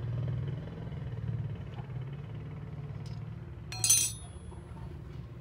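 One sharp metallic clink of a steel hand tool against metal about four seconds in, ringing briefly, over a steady low hum.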